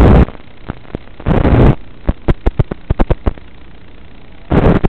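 Static from an analog FPV video link's audio channel: loud bursts of hiss broken by quieter stretches, with a run of sharp crackling clicks in the middle, the sign of the video signal breaking up.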